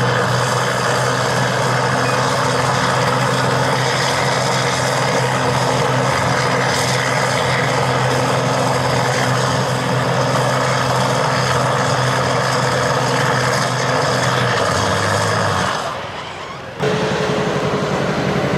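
A John Deere pulling tractor's turbo diesel running away: held by itself at a steady high speed while it pours smoke, after a failure of a setup with oversized injectors on a stock turbo. About 14 s in, the pitch drops slightly, and the sound fades and cuts off near the end.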